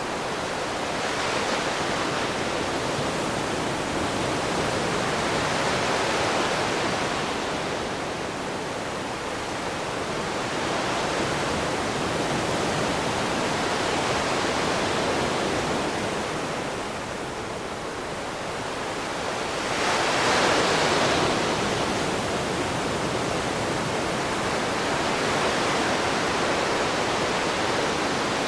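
Ocean waves breaking and washing on a shore, a steady rush of surf that swells and ebbs every few seconds, with one stronger surge about two-thirds of the way through.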